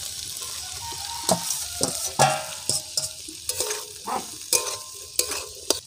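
Metal spatula scraping and knocking against a metal karahi, about ten irregular strokes with a short metallic ring, as potato cubes and boiled peas are stirred and fried. A soft frying sizzle runs underneath.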